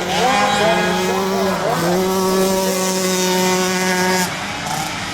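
Flat track racing engines revving hard as riders go by, the pitch climbing near the start, dipping briefly, then held high before falling back a little after four seconds.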